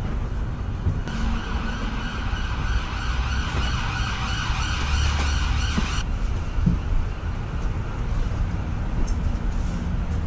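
A siren sounding at a steady high pitch, starting about a second in and cutting off abruptly about five seconds later, over a steady low rumble.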